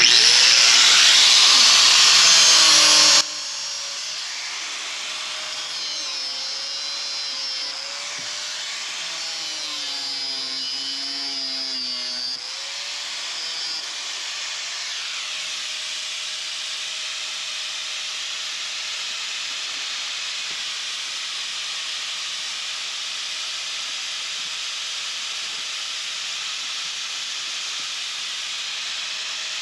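Power tool cutting rusted sheet steel, loud for about three seconds, its pitch rising as it spins up, then stopping abruptly. A steady hiss follows, with faint wavering tones.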